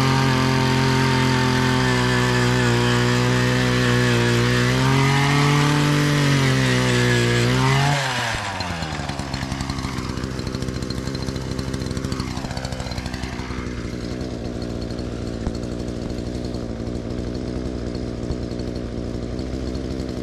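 Gas-powered one-man post hole auger engine running at high speed while boring into the ground, its pitch sagging under load a few seconds in. About eight seconds in it is throttled back, and a quieter, steadier engine sound carries on.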